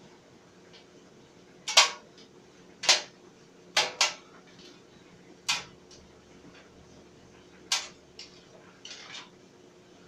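Clothes dryer running with a faint steady hum, while hard items in the tumbling load clank against the metal drum: a series of sharp, irregularly spaced knocks.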